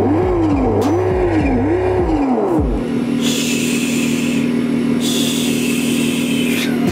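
Simulated engine sound from the RC car's sound module, idling and then revved three times in quick succession, each rev rising in pitch and falling back to idle. After that it idles steadily.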